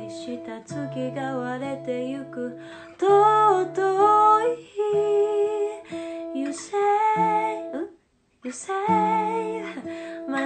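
A woman singing a slow ballad over plucked guitar accompaniment. The sound cuts out for about half a second near the end.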